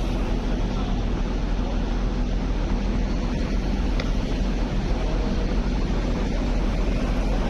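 A steady, unchanging outdoor rumble with most of its weight low down, and a single faint click about four seconds in.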